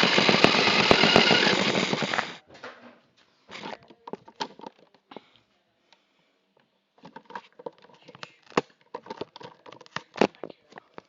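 Radio-controlled toy car running, a loud rapid clattering rattle that stops about two and a half seconds in, followed by scattered knocks and clicks as it moves and bumps about.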